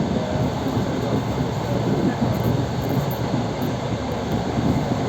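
Electric commuter train running between stations, heard from inside the carriage: a steady, even rumble of wheels on the track.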